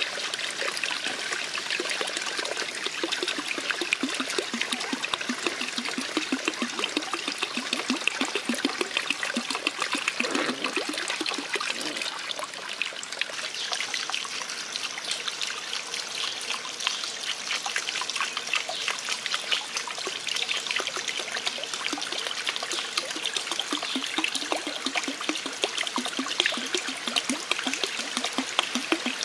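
Water trickling and splashing steadily, running down a small channel over a bamboo water wheel into a shallow pond.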